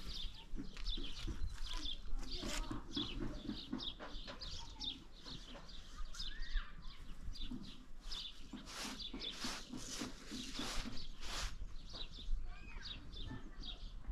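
Birds chirping again and again, with a few louder farm-animal calls mixed in.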